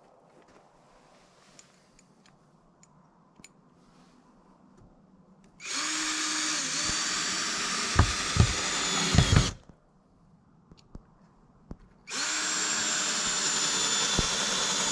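Power drill running in two steady runs, the first about four seconds long starting about five seconds in, the second about three seconds long near the end, each stopping abruptly. A few knocks come near the end of the first run.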